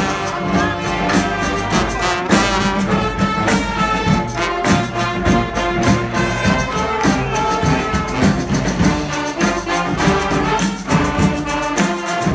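Live brass street band playing, with trombones and trumpets over frequent drum hits.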